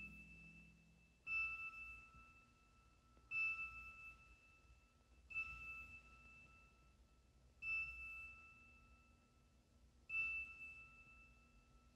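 Soft bell-like chime note struck five times, roughly every two seconds, each ringing out and fading, over a faint held low note: a quiet passage of orchestral music.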